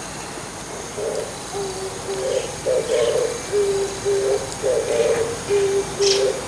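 Oriental turtle dove singing its low cooing song, starting about a second in: repeated phrases of husky notes each followed by clearer, lower coos.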